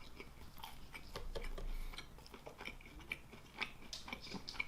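Close-miked chewing of a dried churro: faint, irregular small crunches and mouth clicks.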